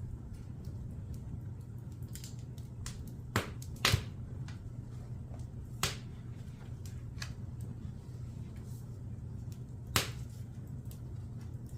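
Wood fire crackling in a fireplace: a steady low rumble with scattered sharp pops and snaps, a few of them loud, around four, six and ten seconds in.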